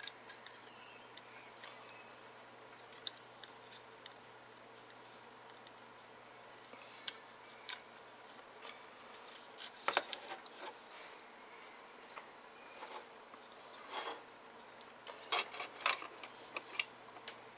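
Light clicks, taps and rustles from hands handling a small amplifier circuit board, its wires and components. They come singly and sparsely at first, then in quick clusters about ten seconds in and again near the end.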